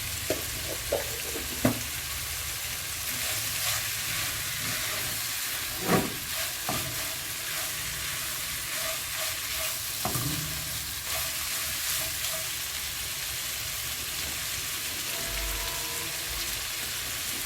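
Shrimp sizzling steadily as they sauté in oil and garlic in a frying pan, with a few knocks, the loudest about six seconds in and another about ten seconds in.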